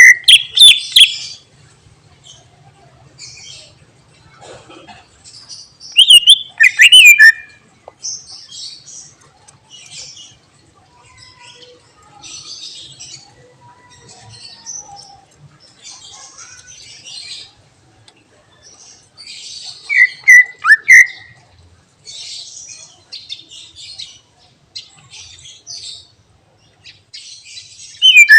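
Cucak ijo (green leafbird) singing. Loud, clear whistled phrases that sweep up and down in pitch ring out at the start, about 6 s in and about 20 s in, with another beginning at the very end. Between them runs a quieter, scratchy chatter of twitters: the varied song that keepers value for its mimicked 'isian' phrases.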